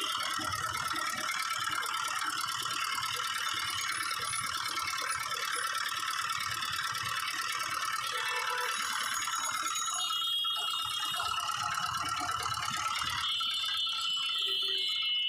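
Sugarcane juice press running, its gear-driven steel rollers clattering with a steady rattle as cane stalks are fed through and crushed.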